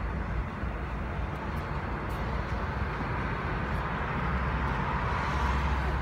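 Toshiba inverter mini-split air conditioner running: a steady rush of fan air over a low hum.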